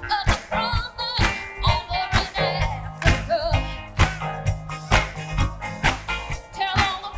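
Live gospel ensemble performing an upbeat soul-funk number: a woman sings lead with vibrato over the band's steady beat, about two beats a second.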